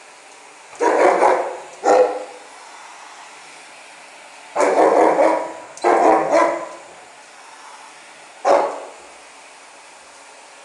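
Weimaraner barking at a central vacuum cleaner in five separate bouts spread over several seconds, over the steady hiss of the vacuum's suction.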